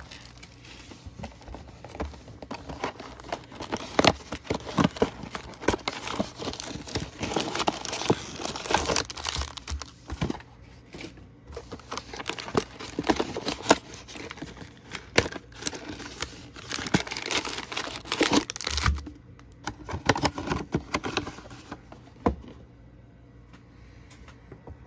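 Plastic wrapping and card-pack wrappers being torn and crinkled as a cardboard trading-card box is opened and its packs handled. The crackling is dense, with many sharp snaps, and thins out in the last few seconds.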